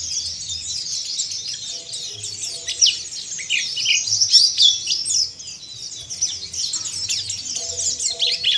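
Pleci (Oriental white-eyes) twittering harshly in a fast, unbroken stream of high chirps and quick trills. The stream is busiest and loudest from about two and a half to five seconds in.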